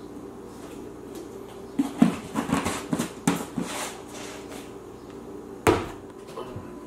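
Light knocks, taps and scrapes of a plastic scoop against a plastic tub and bowl while protein powder is scooped and weighed: a quick run of taps for about two seconds, then one sharper knock near the end.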